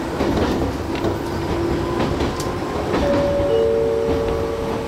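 Gakunan Railway electric train running along the line: a steady rumble with scattered clicks of the wheels over the rails. About three seconds in, two steady high tones sound together for about a second and a half.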